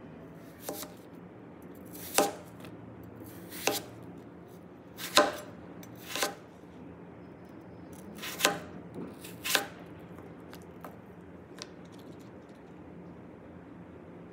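Kitchen knife slicing through peeled raw potatoes and knocking down onto a bamboo cutting board: about eight separate cuts, roughly one every second or so, in the first ten seconds, then a couple of faint taps.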